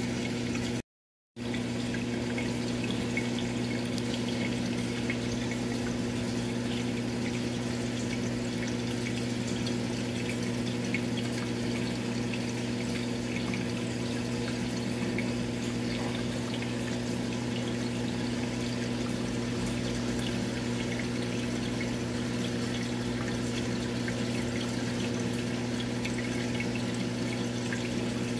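Steady electric hum of an aquarium water pump with water trickling, cutting out completely for a moment about a second in.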